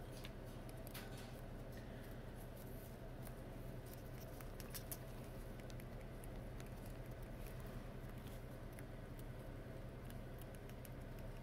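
Quiet room tone: a steady low hum under faint, scattered light clicks and ticks.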